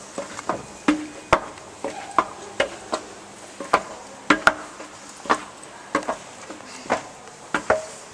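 An irregular series of sharp clicks and knocks, about one or two a second, some with a short ringing tone.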